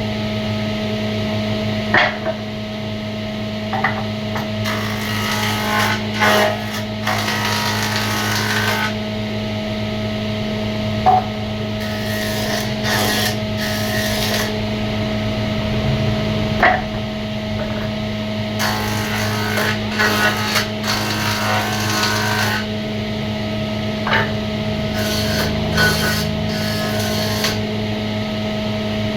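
Woodworking in a workshop: a machine hums steadily while wood is scraped in stretches of a few seconds each, broken by a few sharp knocks.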